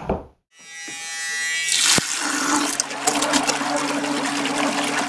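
A small electric bilge-pump motor fitted with a remote-control boat propeller, running submerged in a bucket of water. A steady motor hum starts about half a second in, and from about two seconds in it is under loud rushing, churning water.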